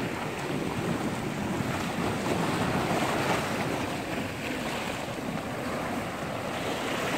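Sea surf breaking and washing over rocks, a steady rushing noise, with wind buffeting the microphone.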